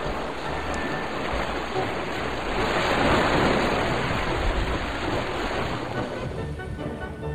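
Small waves washing on a rocky, sandy shore, an even rushing noise that swells about three seconds in, with wind buffeting the microphone. Faint background music with steady tones comes in near the end.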